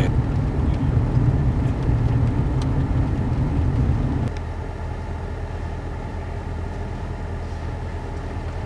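Steady low rumble of a car in motion, with a few faint clicks; the rumble drops abruptly to a quieter level about four seconds in.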